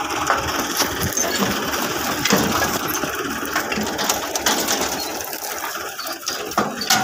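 Tractor engine running steadily with a rattling mechanical clatter, easing off a little near the end.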